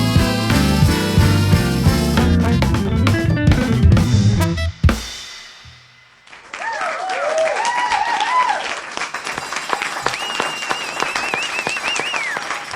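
Jazz octet with horns and a drum kit playing the closing bars of a tune and stopping together on a final hit about five seconds in. After a moment of quiet, the audience applauds, with whoops and a long whistle near the end.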